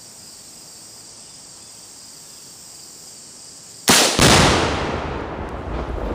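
A rifle shot and the homemade Tannerite blast it sets off, two sharp reports a fraction of a second apart about four seconds in, followed by a long echo dying away across the woods. Before the blast, a steady high chirring of insects.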